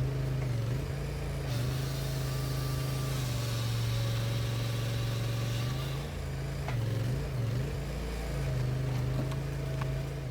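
A loader's engine runs steadily, its pitch dipping briefly several times as it takes load, while it drives a firewood processor attachment. From about a second and a half in to about six seconds in, a harsher hissing noise rides over the engine.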